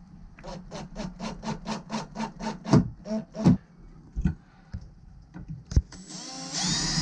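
A quick run of even clicks, about five a second, for about three seconds, then a Makita cordless drill spinning up with a rising whine for about a second near the end.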